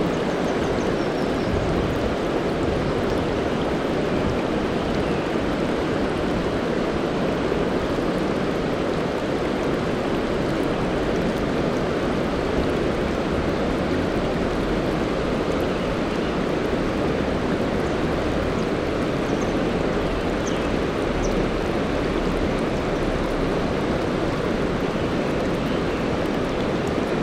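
Mountain stream water rushing steadily, a constant even noise that does not change.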